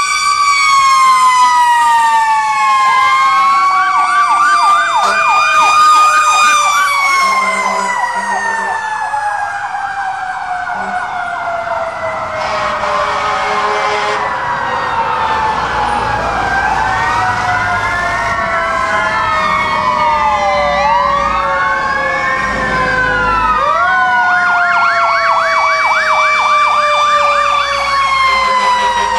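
Several fire truck sirens sounding at once as the trucks pass. Overlapping wails rise and fall, with one long tone slowly sliding down in pitch. Fast yelping sweeps come in near the start and again near the end.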